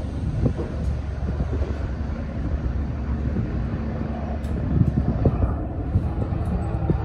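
A steady low engine rumble, with a few light knocks of timber boards being handled on the formwork from about four and a half seconds in.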